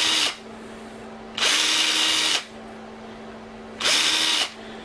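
Power drill run in three short bursts of about a second each, its bit reaming out mounting holes in a black plastic RC jet-boat pump part to take a little material out. The motor speeds up at the start of each burst and winds down at the end, with a steady low hum between the bursts.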